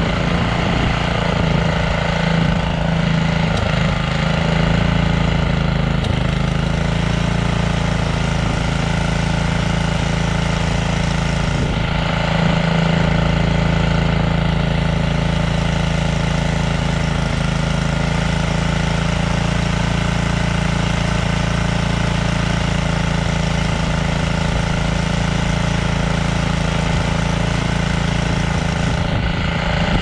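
Gasoline engine of a two-stage snowblower running steadily.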